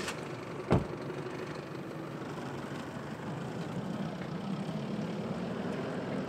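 Isuzu pickup's engine running steadily at low revs as the truck pulls away, with a single thump about a second in.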